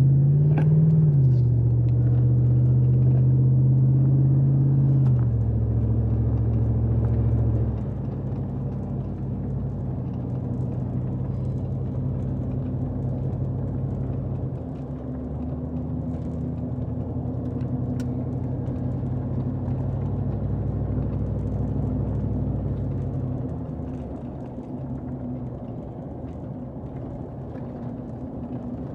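A 2007 Chevrolet Silverado's engine pulling away and driving, heard from inside the cab. The engine note rises as it sets off, then drops in two steps within the first eight seconds. It runs steadily after that and falls off near the end.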